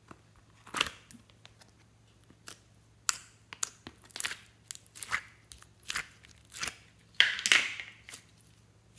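Soft plastic slime container being opened and handled, then clear glitter slime squeezed out of it by hand: a string of short clicks and crackling sounds, the longest and loudest about seven seconds in as the slime is pressed out.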